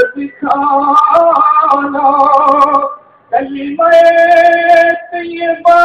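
A man singing a devotional salam to the Prophet into a microphone, holding long, slightly wavering notes in phrases with short breaks between them.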